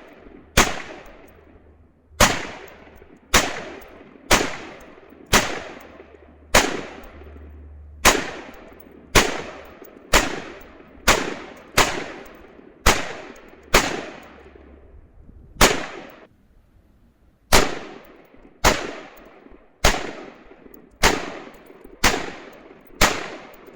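AR-15 rifle fired semi-automatically, about twenty shots at roughly one a second, each with a short echoing tail. There is a brief pause about two-thirds of the way through.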